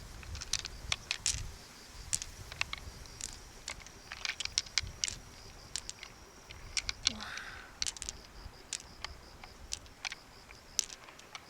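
Irregular small sharp clicks and taps of hard objects being handled, with a faint steady high tone underneath.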